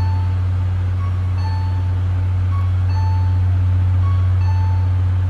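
Steady low electric hum from a standing electric train, with a two-note station platform chime repeating about every second and a half: a short higher note, then a longer lower one.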